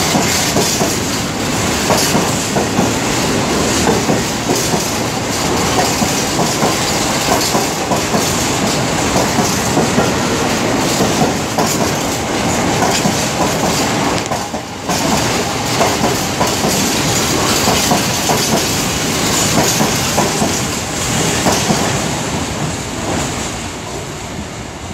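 Wagons of a long freight train rolling past, steady wheel clatter over the rail joints with some squeal. It fades out in the last few seconds as the train clears.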